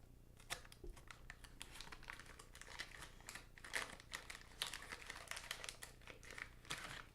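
Wax-paper wrapper of a 1990-91 Fleer basketball card pack crinkling and tearing as it is opened, with a run of irregular soft crackles.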